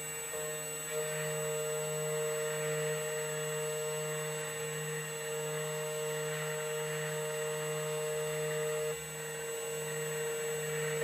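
2M2 Tank CNC key cutting machine running its cut on a key blank: a steady motor whine and hum, dipping briefly about nine seconds in.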